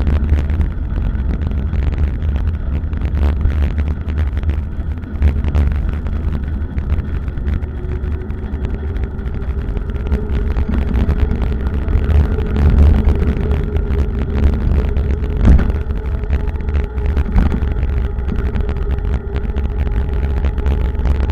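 Wind buffeting the microphone of a camera on a moving bicycle, a steady low rumble with road noise. A faint steady hum comes in about eight seconds in.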